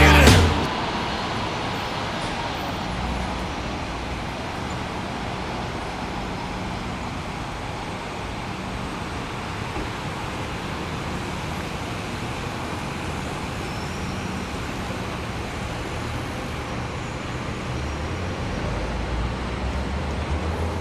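Music cuts off right at the start, leaving steady city traffic noise: an even hiss with a low rumble underneath.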